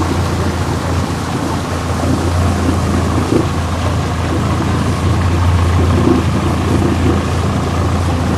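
Outboard motor of a river raft running steadily, a low even drone.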